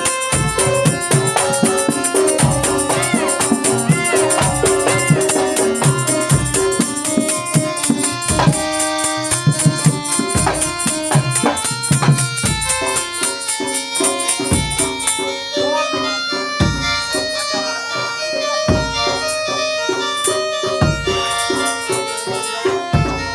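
Traditional Indonesian folk-performance music: hand drums beating a steady rhythm under pitched melodic instruments, with a continuous high jingle of rattles or bells that stops about two-thirds of the way through.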